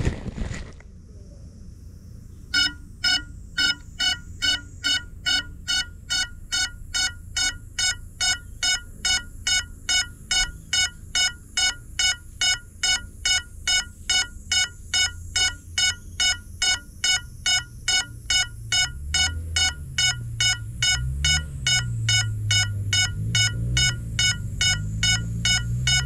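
FPV drone's lost-model buzzer beeping after a crash: a short high electronic beep repeating evenly about twice a second, starting a couple of seconds in. A low wavering drone builds up underneath in the second half.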